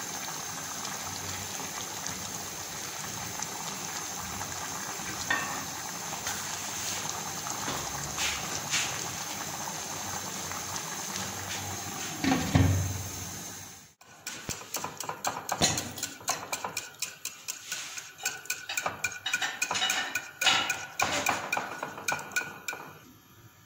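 A spatula stirs soup in a large steel pot over a steady hiss, with light scattered knocks, and a loud clunk about twelve seconds in as a glass lid is set on the pot. After a sudden cut, a wire whisk beats in a glass dish, clicking rapidly and unevenly against its sides.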